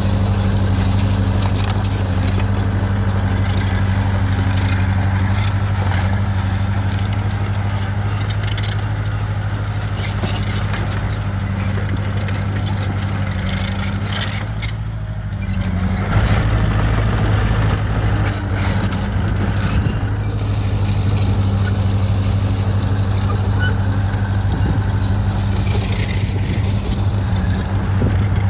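Bulldozer's diesel engine running steadily, with frequent clicks and clanks over it. The engine eases briefly about halfway through, then picks up again.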